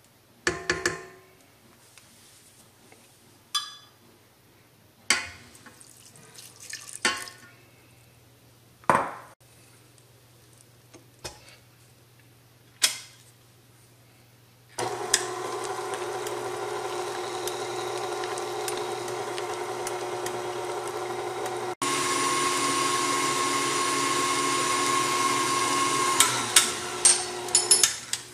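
Stand mixer with a wire whisk beating mashed pinto beans in a stainless steel bowl. It opens with a few scattered scrapes and clinks of a spatula against the whisk and bowl. About halfway through the mixer motor starts with a steady whir, steps up louder about three quarters of the way in, and a few sharp knocks come near the end.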